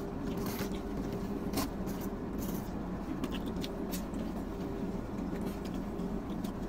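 Steady low hum of a car idling, heard inside the cabin, with a few faint clicks and rustles as people eat pizza.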